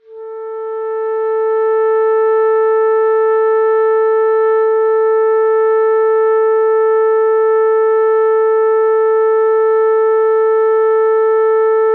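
A single sustained note with a clear overtone series, coming in out of silence, swelling over the first two seconds and then held completely steady: a drone in a minimalist sound composition.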